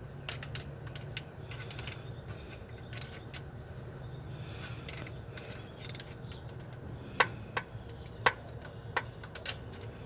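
Small metal clicks and taps as a valve spring retainer is turned and worked to free the valve keepers, with a few sharper clicks about three-quarters of the way in, over a low steady hum.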